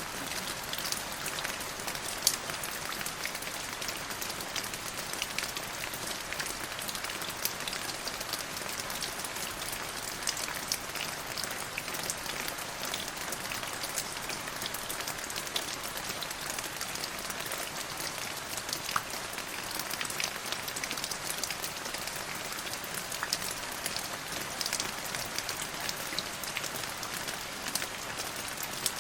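Steady rain falling: a constant hiss with many separate drops ticking through it.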